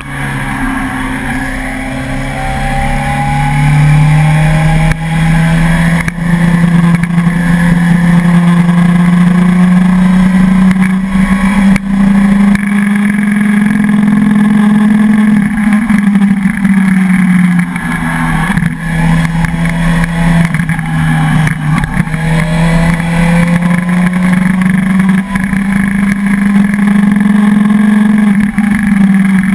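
Suzuki sport motorcycle's engine pulling steadily uphill, its note slowly rising and falling with the throttle. It drops off briefly several times, with wind rush over the bike throughout.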